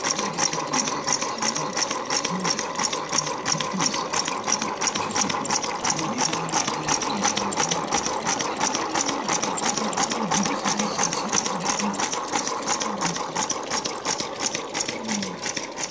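Homemade 12 V DC three-cylinder solenoid engine running steadily, its plungers and wire crankshaft making a rapid, even mechanical clatter.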